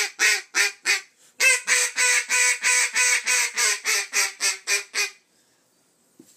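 Duck Commander 'The Ringer' single-reed acrylic duck call blown in quick quacks. A few notes come first, then a short pause about a second in. After that comes a run of about a dozen quacks, the first drawn out, sinking slightly in pitch and stopping about five seconds in.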